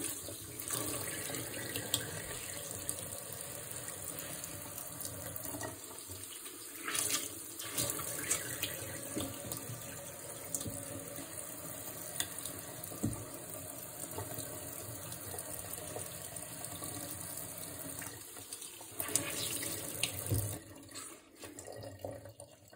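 Kitchen faucet running steadily into a stainless steel sink while a microfibre cloth is rinsed under the stream by hand. The water stops near the end.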